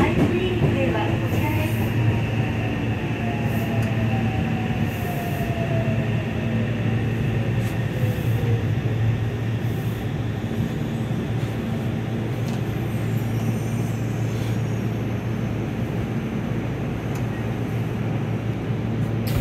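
Yokohama Municipal Subway 3000R-series train heard from inside a motor car, slowing as it runs into a station: a steady low rumble of the running gear, with a motor whine that falls in pitch over the first eight seconds or so.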